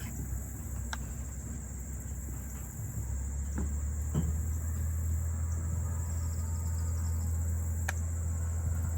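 Steady high-pitched chorus of insects trilling, with a low steady rumble that comes in about three seconds in and a few faint clicks.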